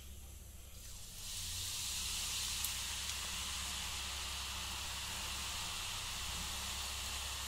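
Hot coconut oil sizzling as strands of spiced gram-flour and rice-flour dough are pressed into it for deep-frying. The sizzle starts suddenly about a second in and then holds steady.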